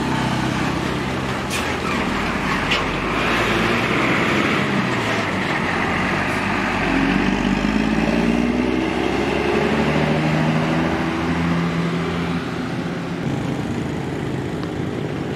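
Diesel engine of a large intercity coach pulling away and accelerating. The engine note climbs, then drops and settles as it shifts gear.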